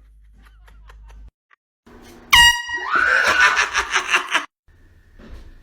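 A loud handheld air horn blast starts a little over two seconds in, a steady high tone, and a person's startled scream mixes in over it; both cut off suddenly about two seconds later.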